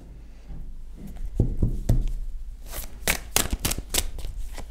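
A tarot deck being shuffled by hand: a few soft card knocks, then a quick run of sharp slaps and flicks as the cards are riffled past the middle.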